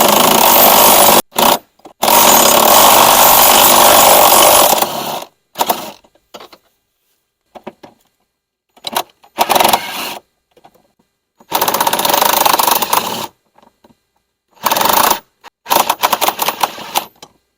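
Impact wrench hammering in repeated bursts of about one to three seconds on a golf cart's rear seat-support bolt. The nut has stripped against the overlong bolt's shoulder, so it spins hot and won't come off.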